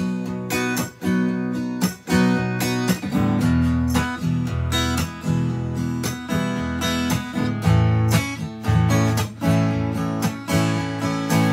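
Acoustic guitar strummed in a steady rhythm: an instrumental passage of chords with no voice.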